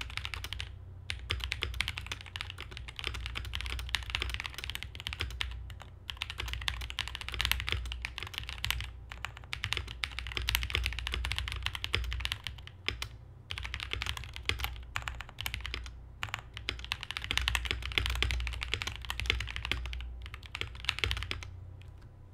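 Fast typing on a KBDfans KBD67 Lite R2 mechanical keyboard with lubed (Krytox 205g0) Durock POM linear switches and doubleshot ABS keycaps: a dense, even patter of keystrokes broken by brief pauses. It stops shortly before the end.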